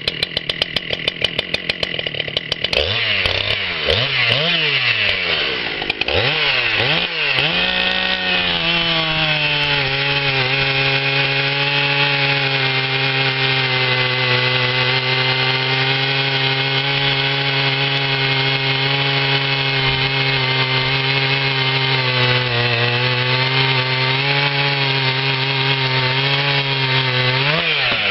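Stock Husqvarna 395XP, a 94 cc two-stroke chainsaw, running high-pitched unloaded at first. Its pitch then dips and rises for a few seconds as it goes into a large log round, and it settles to a steady lower pitch under load while cutting. Near the end it revs up as the chain clears the cut.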